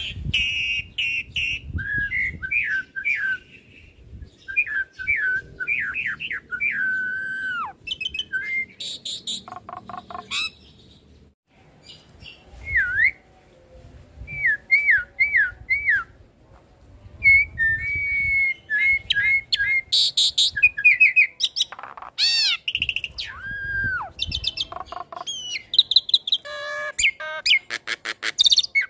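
Hybrid Asian pied starling × Nias hill myna singing: runs of looping whistled notes, each repeated two to four times, broken by harsh chattering calls and a few long rising-and-falling sweeps.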